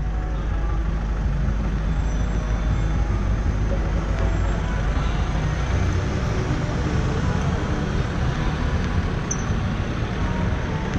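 City street traffic: a steady rumble of passing vehicles, with background voices.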